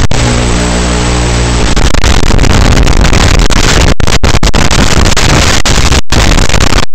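Loud, even static hiss of an analog FPV video link recorded through the goggles' DVR, with a low buzz under it for the first couple of seconds. The hiss cuts out abruptly several times in the second half as the video signal breaks up.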